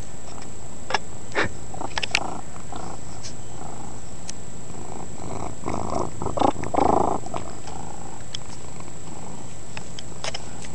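Domestic cat purring steadily right at the microphone, with a few sharp clicks. About six seconds in there is a louder rustling as the cat's face presses against the microphone.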